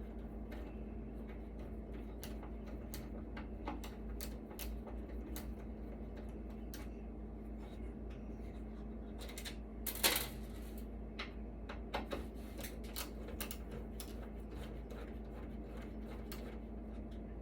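Irregular small metallic clicks and ticks of hand tools working brass hex nuts off the metal chassis of an electronics unit, with a louder clatter about ten seconds in.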